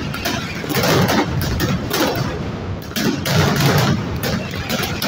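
Mascletà firecrackers going off in a dense, unbroken barrage of loud bangs.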